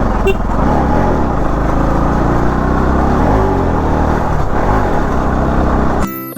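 Bajaj Pulsar NS200's single-cylinder engine running under way, its pitch drifting up and down with the throttle, under heavy wind and road rush. Piano music cuts in suddenly just before the end.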